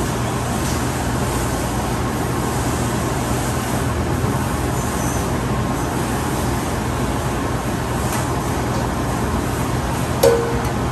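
Steady whooshing noise of commercial kitchen ventilation, with a constant low hum underneath. A single short clink sounds near the end.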